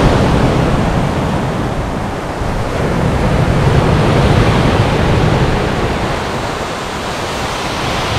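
Ocean surf breaking and washing over a rocky shore: a loud, steady rush that swells and eases.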